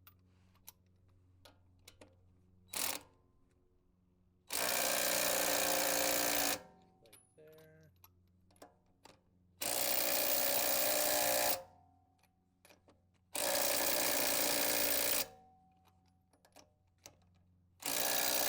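Impact wrench run on the wheel's lug nuts four times, about two seconds each, tightening them one after another, with small clicks and knocks of the socket and tools in between.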